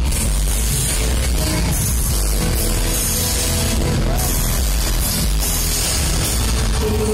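Loud live music played over a concert PA, with a heavy bass low end, recorded from within the crowd.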